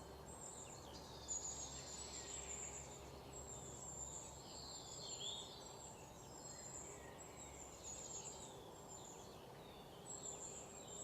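Several birds chirping and singing, many short overlapping calls, over a faint steady hum.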